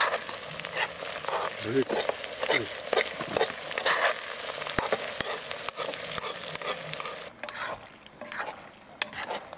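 Food sizzling as it fries while being stirred, with a utensil clicking and scraping in the cookware. The sizzling and stirring stop about seven seconds in.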